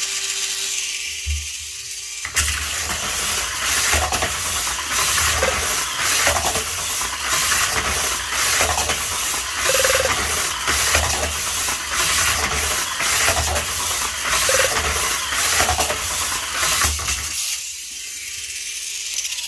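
Mini 4WD Saint Dragon's motor and gear train running with an abnormal, hissing and grinding mechanical noise with an irregular low thumping; the title puts it down to a faulty gear. It starts about two seconds in and dies away near the end.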